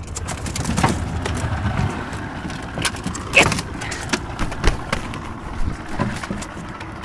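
Canada goose and dog scuffling in an aluminum jon boat: scattered knocks and thumps on the metal hull, and wings flapping. One short high call comes about three and a half seconds in.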